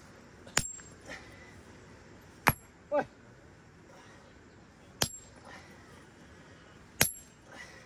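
Four hammer blows on stone with a sharp metallic ring, about two seconds apart: rock being broken by hand.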